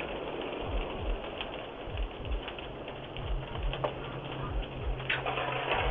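A house fire heard through a doorbell camera's microphone: a steady rushing noise with scattered crackling clicks and irregular low thuds, and a low steady hum coming in about halfway.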